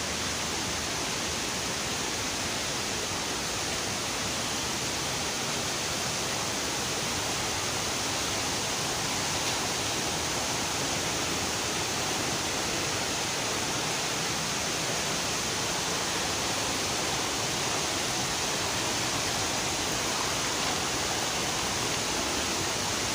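Steady rush of a waterfall and its river, an even hiss of falling and flowing water.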